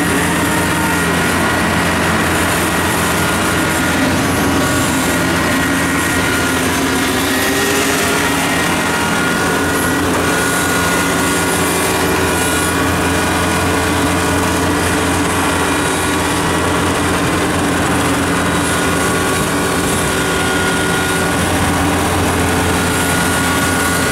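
Large diesel engine running steadily at a constant speed, with a thin steady whine over it and no change in pace.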